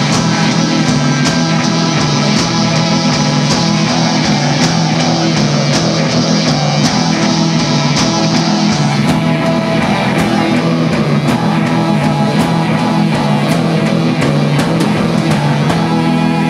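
Live rock band playing loud: drum kit with a steady beat, electric guitar and bass guitar. The bright top of the sound thins out about halfway through while the beat carries on.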